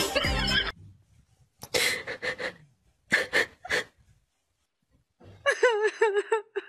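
Music cuts off under a second in; then short breathy gasps come in two quick clusters, followed near the end by a high, wavering voice.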